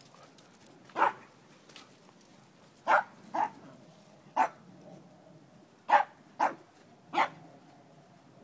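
A dog barking during play: seven short barks, some single and some in quick pairs, spaced a second or so apart.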